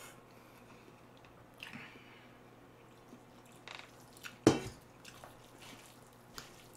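Water poured in small amounts from a small metal pot into a pan of noodles, with dripping and a wet stirring squish, and one sharp metal clink about four and a half seconds in.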